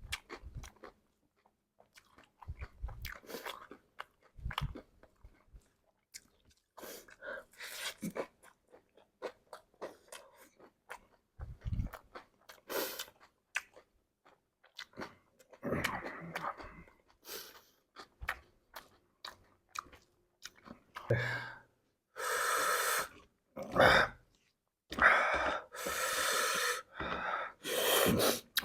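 Close-up chewing and crunching of a mouthful of chatpate: puffed rice, sev and raw vegetables cracking between the teeth in many short crackly bites. Near the end come several longer, louder noisy sounds.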